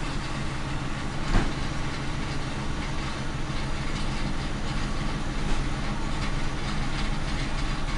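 Ford Crown Victoria's 4.6-litre V8 idling steadily, misfiring on cylinder 3 because of a bad ignition coil pack moved there from cylinder 2. A single short knock about a second and a half in.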